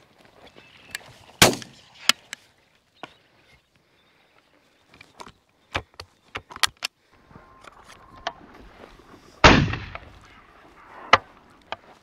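Two shotgun shots at a flushed game bird, about eight seconds apart, the second louder and longer; light footsteps and brushing in the prairie grass between them.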